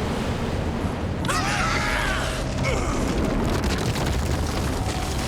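Cartoon action sound effects: a continuous heavy rumble, with warbling electronic tones that rise and fall for about a second, starting a little over a second in.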